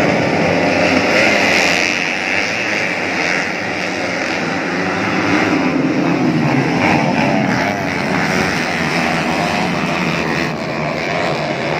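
A pack of motocross dirt bikes racing together, many engines revving hard over one another in a dense, steady din.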